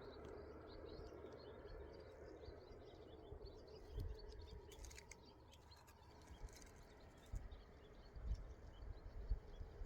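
Many small birds chirping faintly over a steady outdoor background hum, with a few soft low thumps in the second half.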